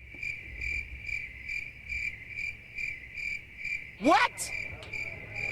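Cricket chirping: a steady high trill pulsing about three times a second. About four seconds in, a quick rising whistle-like glide cuts across it.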